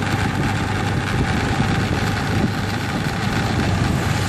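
Motor scooter engine running steadily.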